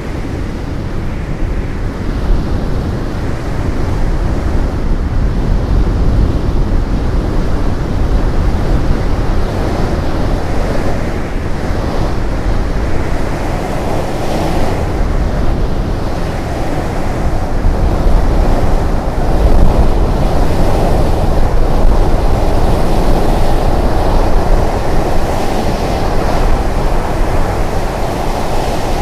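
Strong wind blowing over an exposed mountain summit and buffeting the microphone, a steady rushing rumble that grows a little louder in the second half.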